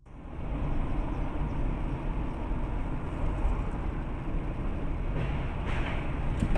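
Steady road and engine rumble of a car driving along a street, as picked up by a dashcam microphone inside the car, fading in at the start.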